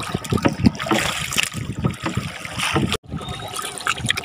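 Water splashing and trickling around a small boat, in irregular splashes. The sound drops out for an instant about three seconds in.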